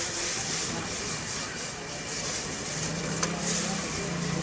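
Maggi noodles in sauce sizzling and sloshing in a hot black iron wok as a steel ladle stirs them fast, over a steady hiss. A single sharp clink of ladle on wok about three seconds in.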